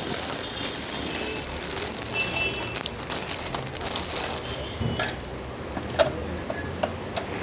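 Plastic packaging crinkling and rustling as a new mixer grinder and its parts are handled, easing off about two-thirds through, followed by a few sharp knocks.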